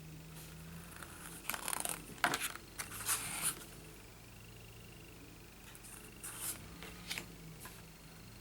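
Stiff paper cards being handled: short rustles and light clicks, in one cluster about a second and a half in and another around six to seven seconds in.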